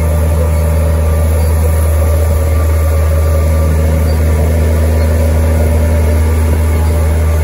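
New Holland tractor's diesel engine running steadily, a low, even hum.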